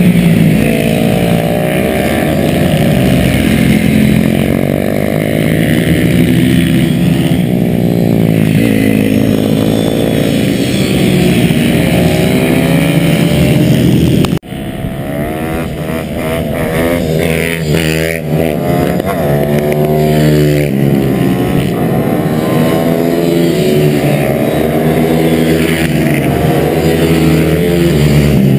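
Small motorcycle engine heard from the bike carrying the camera, its pitch climbing under acceleration and falling back off the throttle, over and over. The sound breaks off abruptly for a moment about halfway through, then the engine carries on.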